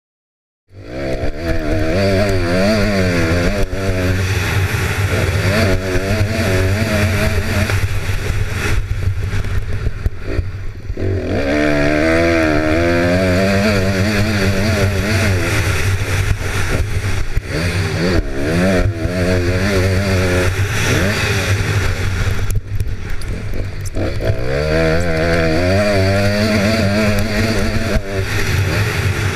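Honda CRF250R motocross bike's four-stroke single-cylinder engine, heard close from the rider's helmet, cutting in about a second in and revving hard, its pitch climbing and dropping again and again, with two short lulls where it backs off.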